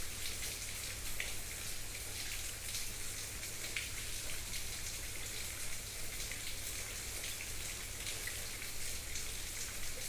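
Steady crackly hiss with a low hum underneath: the recording's background noise while no one speaks.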